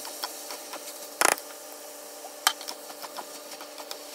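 Wooden utensil knocking and scraping against a wok as stir-fried noodles and vegetables are tossed: scattered light clicks, with a sharper knock about a second in and another about two and a half seconds in, over a steady faint hum.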